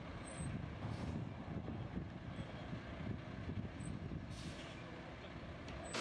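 Concrete mixer truck's diesel engine running with a low, uneven rumble as the truck drives.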